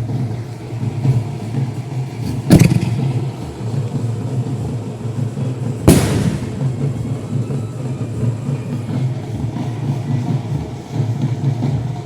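Two loud bursts of 6-inch aerial firework display shells, about three seconds apart, each cracking sharply and dying away, over a steady low rumble.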